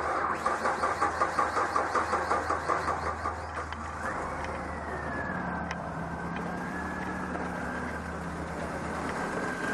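A car engine cranked by its starter for about three seconds, then catching and settling into a steady idle with a high whine over it.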